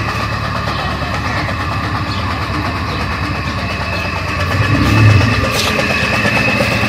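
Electric donkey pump (small centrifugal water pump) running steadily with a hum and pumping water, its gland freshly packed with gland rope. A brief, louder low bump comes about five seconds in.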